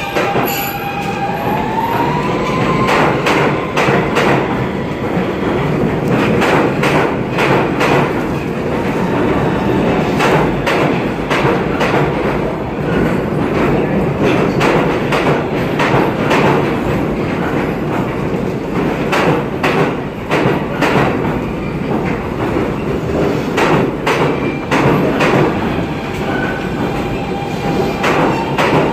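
New York City subway train pulling out of the station and running past at close range. Its motor whine rises in pitch during the first few seconds, under a steady loud rumble with many sharp clacks from the wheels over rail joints.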